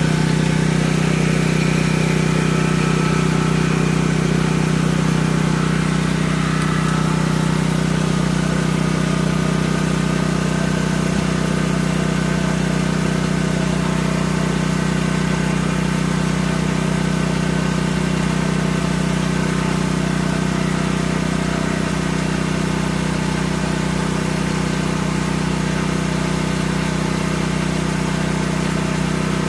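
Portable gasoline generator engine running steadily at constant speed, with a steady low hum.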